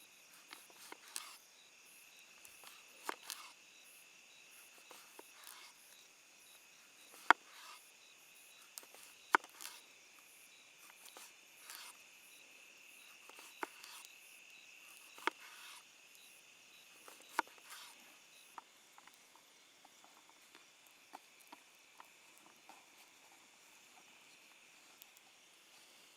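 Insects chirring steadily, with scattered sharp clicks and knocks over it, the loudest two about seven and nine seconds in.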